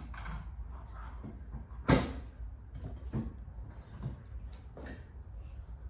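Detachable sissy bar being clamped onto motorcycle docking hardware, latching with one sharp clack about two seconds in, followed by a few lighter knocks.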